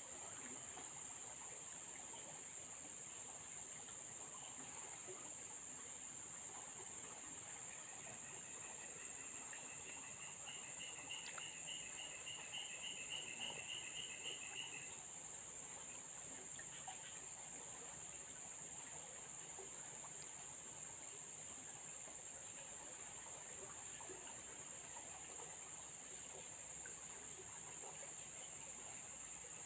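Insects keep up a steady, high-pitched shrill chorus. In the middle, for about seven seconds, a rapidly pulsed chirping call rises over it and then stops.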